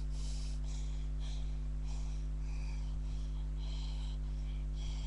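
Steady low electrical mains hum from a webcam microphone, with short soft hisses at uneven intervals, about every half second.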